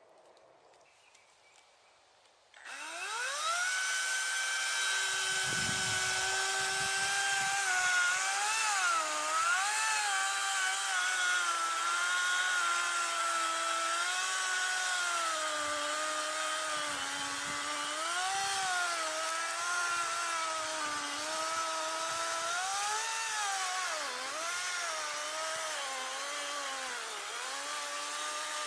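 Parkside cordless battery chainsaw starting up about three seconds in with a rising whine, then running steadily as it saws into the base of a standing tree. Its pitch dips and recovers again and again as the chain takes load in the cut.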